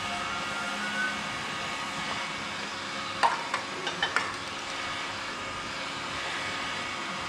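A steady mechanical hum and hiss, with a few sharp clicks and knocks about three to four seconds in.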